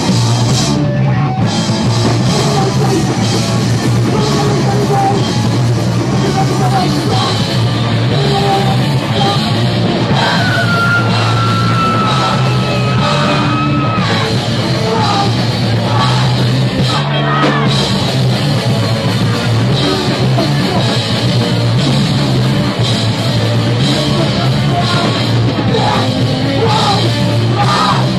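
Hardcore punk band playing live and loud: driving drums and distorted instruments under shouted vocals, without a break. A thin high whine slides slowly down in pitch for a few seconds near the middle.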